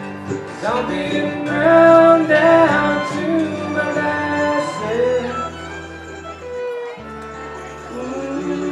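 Music with string instruments playing a melody, loudest about two seconds in.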